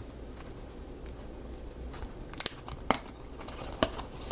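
Small wooden kit pieces being handled, giving a few light, sparse clicks and taps.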